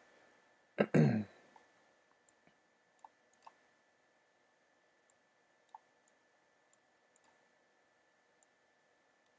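Faint computer mouse clicks, about a dozen short ticks spaced irregularly, as the region's corner pins are dragged. A brief vocal sound about a second in is the loudest thing.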